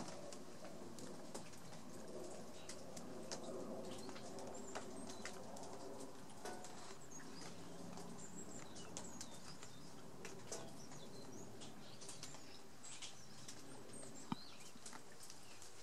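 Quiet garden ambience: a low steady background hum with scattered small clicks and rustles, and faint high bird chirps now and then.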